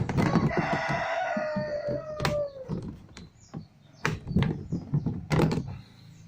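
A rooster crows once, a call of about two and a half seconds whose long held note drops away at the end. After it come several sharp clicks and knocks from work on the washing machine's screws and panels.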